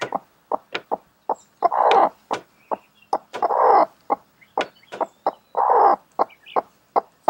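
A hen in a nesting box clucking in short sharp notes, with a longer harsh protest call about every two seconds. She is being disturbed by a hand reaching under her.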